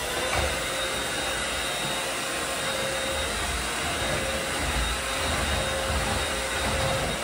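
Corded stick vacuum cleaner running steadily as it is pushed back and forth over a wooden parquet floor, an even motor-and-airflow noise with a faint steady whine in it.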